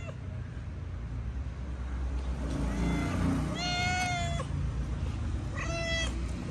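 Domestic cat meowing: a long drawn-out meow about halfway through and a shorter one near the end.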